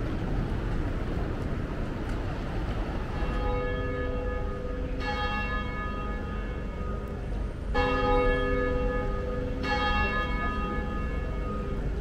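Church bell striking four times, about two seconds apart, each stroke ringing on and fading, over a steady low background rumble.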